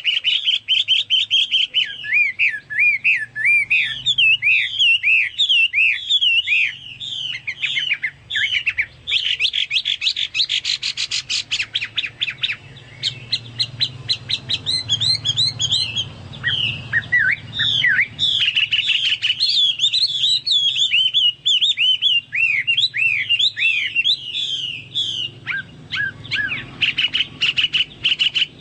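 Chinese hwamei singing on and on without a break: a fast, loud run of varied whistled phrases that slide up and down, with a rapid trill about a third of the way through. Its song is the kind likened to a cucak Papua or cucak mas in full voice. A faint low hum runs underneath.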